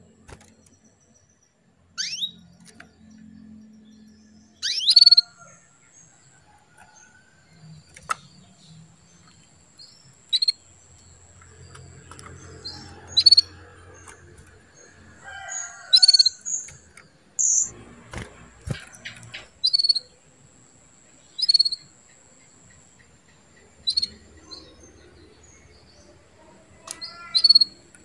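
Female domestic canary giving short, sharp chirping calls, about a dozen, spaced irregularly every two to three seconds. These are the hen's calls that rouse a male canary to sing. A faint steady high-pitched tone runs behind them.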